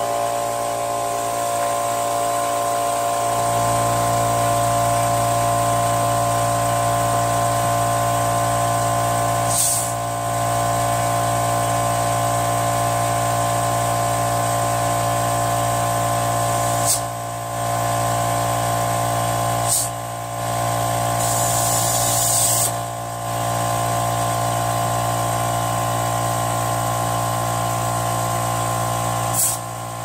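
Electric air compressor running steadily while a lawn tractor tire's new inner tube is inflated through its valve stem. Several short hisses of air come as the chuck is set on and off the valve, one lasting over a second.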